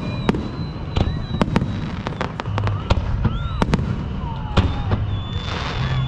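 Fireworks going off: an irregular string of sharp bangs, with several high whistles that rise and then hold briefly.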